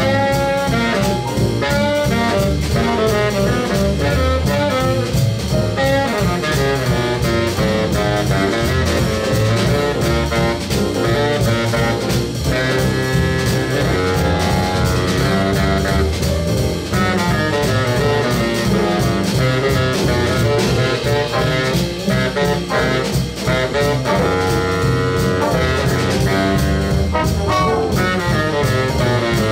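Jazz big band playing: saxophone, trombone and trumpet sections over piano, bass and drum kit, with no break.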